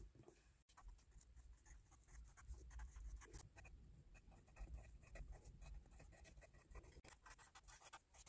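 Faint, irregular scratching of writing by hand on planner paper, close to near silence.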